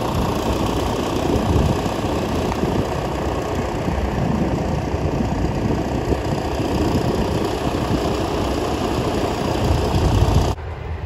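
Strong wind buffeting the microphone: a loud, uneven low rumble that drops off suddenly about ten and a half seconds in.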